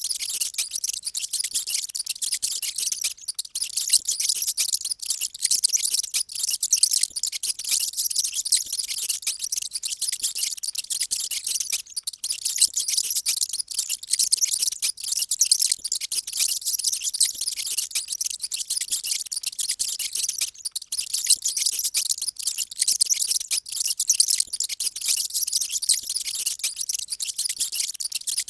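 Many mice squeaking at once: a loud, dense, continuous high-pitched chatter of overlapping squeaks.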